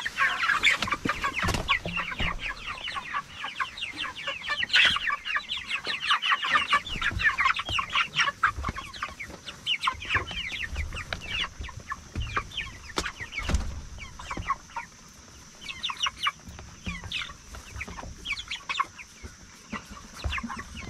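A flock of white broiler chickens calling continually, many short high calls overlapping, thinning out in the last few seconds. A few sharp knocks come through, one about a second and a half in, one near five seconds and one past thirteen seconds.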